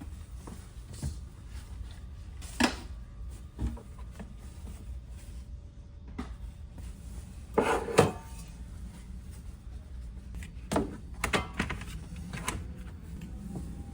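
A handful of scattered knocks and clunks, loudest about eight seconds in, over a steady low rumble.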